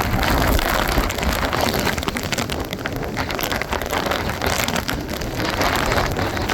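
Hurricane wind and heavy driving rain, with wind buffeting the microphone in a low rumble and raindrops crackling as they hit.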